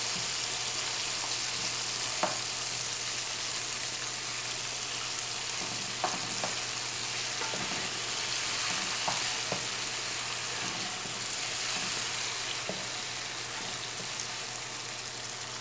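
Oil sizzling steadily as tomato pieces, green chillies and garlic-ginger paste fry in a non-stick pot, with a wooden spoon stirring through them and knocking lightly against the pot a few times.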